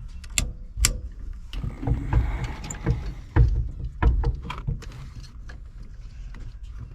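Scattered clicks, taps and low thumps of small parts and tools being handled, busiest in the middle and quieter near the end.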